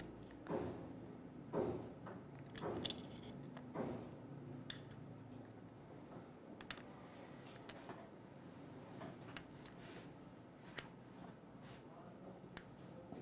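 Faint clicks and scrapes of a plastic spudger prying flex-cable connectors off a Realme 7i smartphone's mainboard. A few longer scrapes come in the first four seconds, then scattered sharp single clicks.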